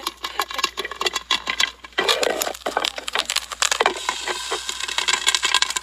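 Dense, irregular crackling and popping of a wood cooking fire.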